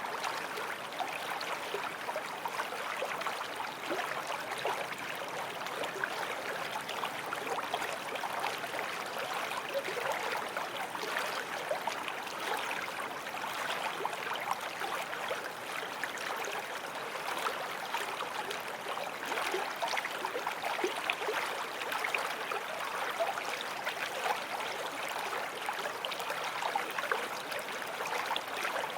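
Small forest stream flowing steadily, water splashing and gurgling over stones.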